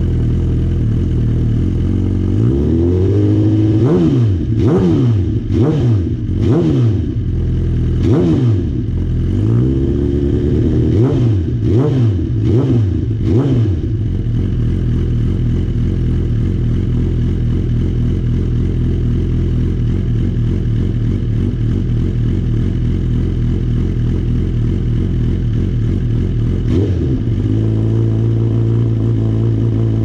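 2019 Suzuki GSX-R1000R's inline-four engine through a Yoshimura Racing Titanium Cyclone full titanium exhaust, blipped repeatedly with quick revs that rise and fall for the first 14 seconds or so. It then settles to a steady idle, and the idle note shifts slightly near the end.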